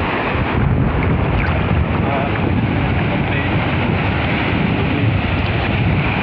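Wind buffeting the microphone with a constant low rumble, over the wash of sea water.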